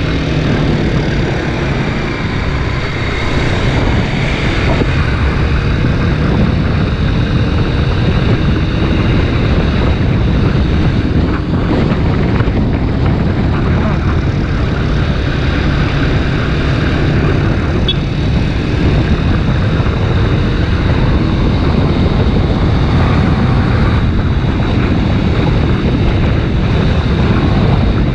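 Kawasaki Ninja 250 RR Mono's single-cylinder engine running steadily while riding, under heavy wind rush on the microphone.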